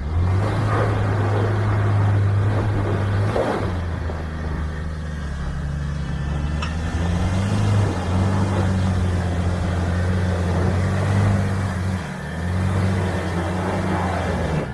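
Nissan Navara pickup's engine pulling at low speed as it crawls up a steep rocky track, with a steady low note that dips and rises in pitch a few times as the throttle is eased and reapplied. A couple of brief knocks from stones under the tyres.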